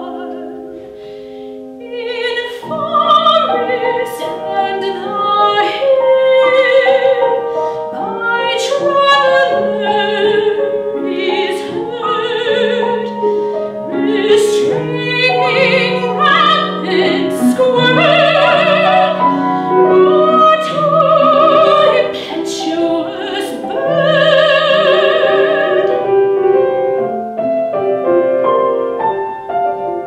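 A soprano sings a classical art song with a wide vibrato, accompanied by a grand piano. The piano plays alone for the first couple of seconds; the voice then comes in and carries the song until shortly before the end, where the piano plays on by itself.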